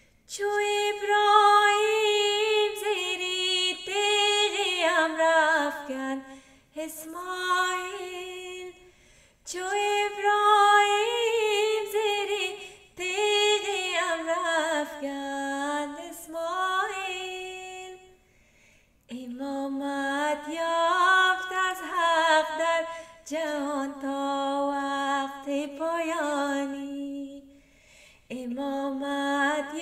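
A woman singing a devotional qasida unaccompanied, in long melodic phrases with short pauses for breath between them.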